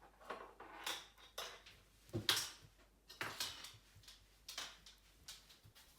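A series of about six soft, irregular clatters and scrapes from handling kitchen things, as baked almond cake rings and molds are moved about on the work surface.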